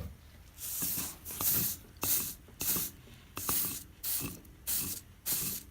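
Hot soldering iron tip wiped repeatedly on a wet sponge to clean it, sizzling in a row of short hisses, about eight of them, roughly one every two-thirds of a second.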